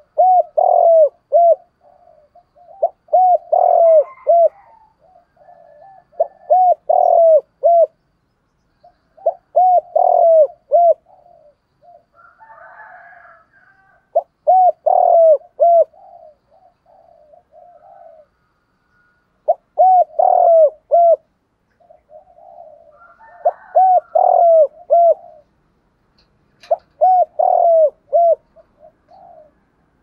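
Spotted dove cooing. It gives short phrases of several quick coos, each note dropping in pitch, and repeats a phrase every few seconds, about eight times in all.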